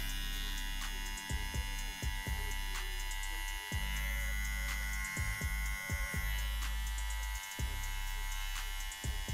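Andis Slimline 2 cordless hair trimmer buzzing steadily as it edges a hairline. Its hum drops out briefly several times, with scattered clicks.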